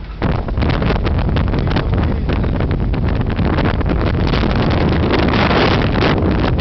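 Sandstorm wind blowing hard across the microphone, a loud, steady rushing noise that jumps up just after the start as the camera turns out into the open.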